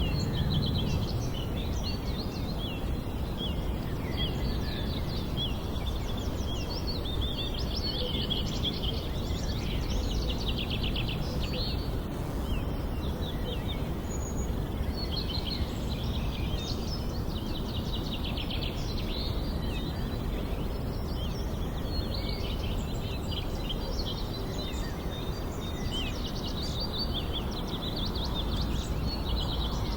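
Nature ambience of small birds chirping and twittering in quick trills, many calls overlapping, over a steady low background noise.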